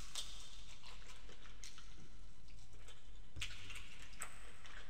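Close-miked eating sounds of a person chewing boiled prawns in sauce: scattered wet mouth clicks and smacks, with a denser run about three and a half seconds in. A low steady hum lies under it.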